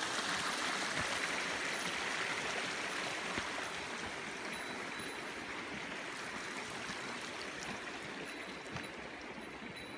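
Steady rushing of a mountain stream, growing slowly fainter, with a few faint clicks.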